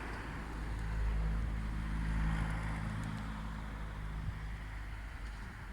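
A motor vehicle's engine humming as it passes, swelling about a second in and fading out after about four seconds, over a steady low rumble.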